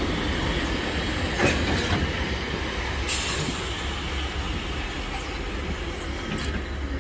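Vintage railway passenger carriages rolling past on the rails: a steady rumble of steel wheels with a sharp click about a second and a half in, a brief high hiss about three seconds in, and faint wheel squeal, easing slowly as the train draws away.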